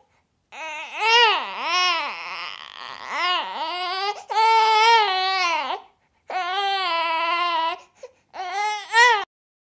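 A baby crying in a run of wailing cries, each rising and falling in pitch, with one longer held cry in the middle; the crying stops suddenly near the end.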